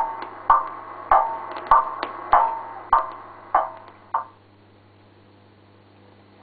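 Regular wood-block-like knocks with a ringing tone, a little under two a second, getting quieter and stopping about four seconds in, played through a television. After them only a low steady hum remains.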